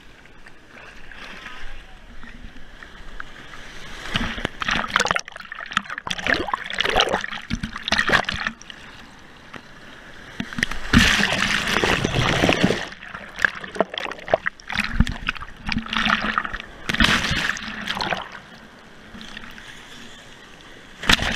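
Breaking surf and foaming water splashing and gurgling around a GoPro held at the waterline, in irregular surges, the biggest about eleven seconds in and lasting a couple of seconds.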